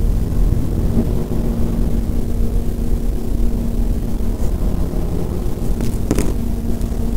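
Loud, steady low rumbling noise with a constant hum running through it from about a second in, and a few sharp crackles near the end.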